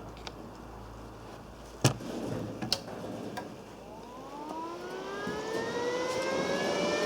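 A few sharp knocks, then a small electric motor spinning up, its whine rising in pitch and settling to a steady speed.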